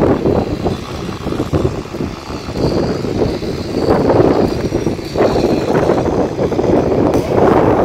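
Strong storm wind gusting and buffeting the microphone, a loud roaring noise that surges and eases several times, then cuts off suddenly near the end.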